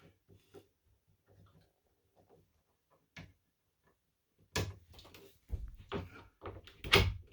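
Knocks and clunks of a wooden lift-up bed frame on gas-shock lifts being handled. A single click comes about three seconds in, then a run of clatter from about halfway, loudest near the end.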